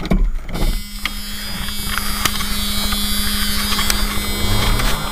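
Chevy truck's starter motor cranking the engine on a cold start, a steady whine from about a second in. Near the end the engine catches and its speed rises.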